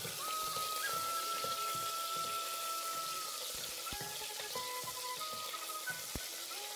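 Cashews and raisins sizzling steadily in hot ghee in a pressure cooker as a wooden spoon stirs them, with a few light knocks. Soft background music with long held notes plays over it.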